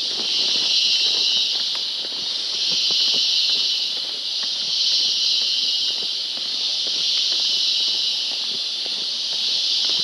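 Rainforest insect chorus: a loud, shrill hiss that swells and eases about every two seconds. Soft footsteps of someone walking the trail sound beneath it.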